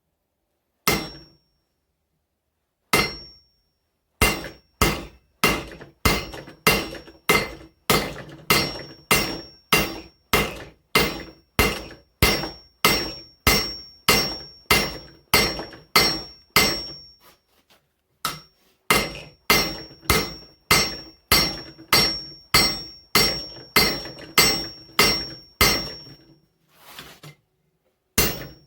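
Hand hammer striking hot mild steel on an anvil: two single blows, then steady forging blows at about two a second with a high ring, broken by a short pause about two thirds through.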